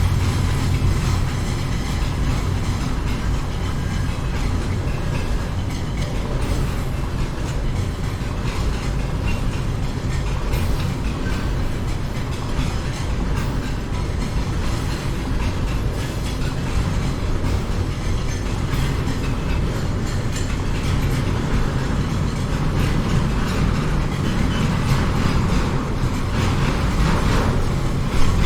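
A train running through the city, heard from an upper floor of a high-rise: a steady low rumble of wagons on the rails with some wheel clatter, and a brief louder knock near the end.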